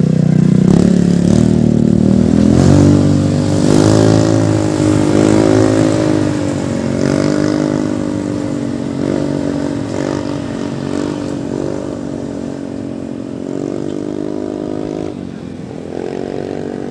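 150cc motorcycle with an aftermarket muffler setup riding away, its exhaust note rising and falling several times with the throttle and gradually fading.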